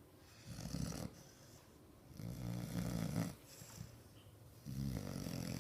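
A six-month-old American bulldog puppy snoring in its sleep: three snores, the middle one the longest at just over a second, and the last starting near the end.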